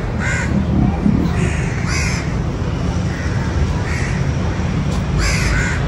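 Crows cawing, about five short calls spread over a few seconds, over a steady low background hum.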